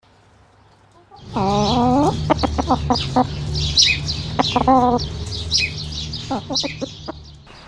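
Chickens clucking and calling, with a drawn-out call about a second in and short clucks and higher chirpy notes through the rest, over a low steady hum.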